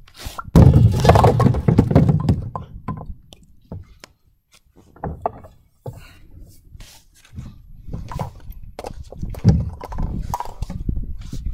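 A bowling ball lands on a plywood lane and rolls with a low rumble for a couple of seconds, followed by the scattered knocks of bowling pins being knocked over. Near the end come more knocks and clatter as the pins are hauled up on paracord and pulleys to be reset.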